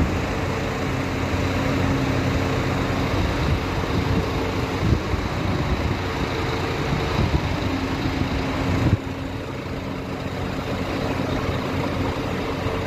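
Engine idling steadily with a continuous hum. About nine seconds in it abruptly becomes quieter and duller.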